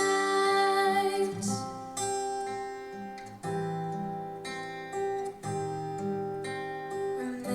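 Instrumental break of a slow ballad played back through a Ruark Audio R5 music system: gently plucked acoustic guitar notes, one about every second, after a held final note fades early on.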